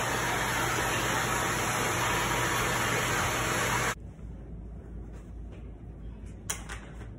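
Vacuum cleaner running: a steady rushing hiss over a low hum, which cuts off abruptly about four seconds in. A single sharp click follows near the end.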